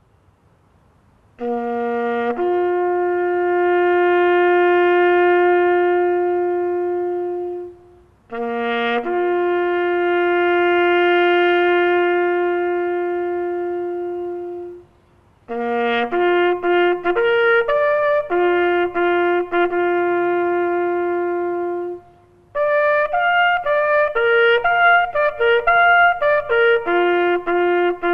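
A solo bugle sounding a military call: two matching phrases, each a short low note and a short high note leading into one long held note, then faster runs of short notes in two phrases, ending on a held note.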